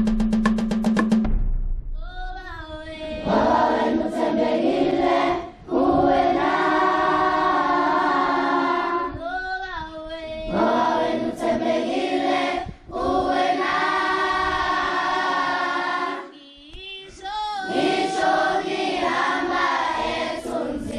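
A choir of many voices singing together in long held phrases, with brief pauses between lines. A rhythmic wooden knocking stops about a second in, just before the singing begins.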